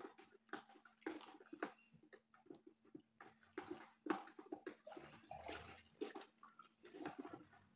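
Dishwashing-liquid concentrate and water being stirred by hand in a large container: faint, irregular sloshing and splashing as the stick moves through the thick, soapy mix that is slow to dissolve.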